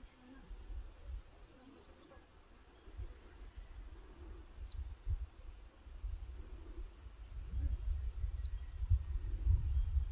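Outdoor ambience: an uneven low rumble that grows louder toward the end, with faint scattered bird chirps and a steady high insect hum.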